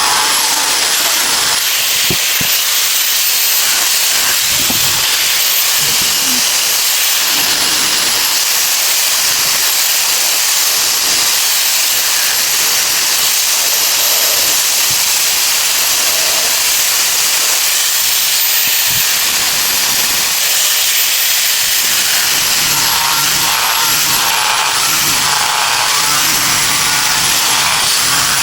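A small electric power tool running steadily with a loud hiss, its high whine dipping and rising in pitch from time to time.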